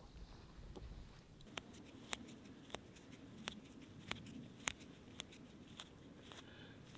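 A run of about ten sharp snips, one every half-second or so, starting about a second and a half in: wild thyme stems being cut at harvest.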